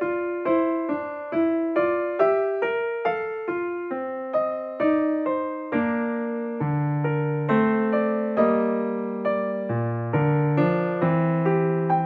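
Background piano music: a gentle melody of single struck notes, about two to three a second, each fading away. Lower, longer-held notes join from about halfway through.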